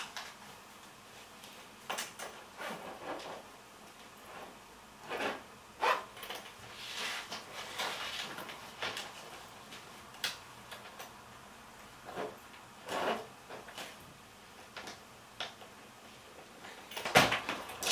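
Intermittent rustling, clicks and knocks of belongings being handled and packed into a suitcase, with a sharp click at the start and a louder clatter near the end.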